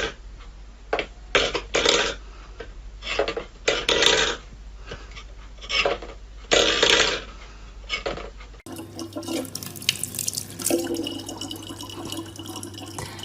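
Water splashing in short repeated bursts of about half a second to a second each. About two-thirds of the way in, this gives way to a steadier trickle of water over a low steady hum.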